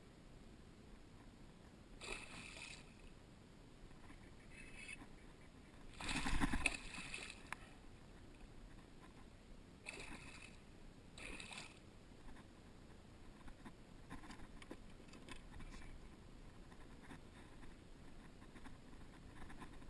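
A hooked pike thrashing at the surface beside a boat: a series of short splashes, the loudest about six seconds in, with smaller water sounds as it is brought in by hand near the end.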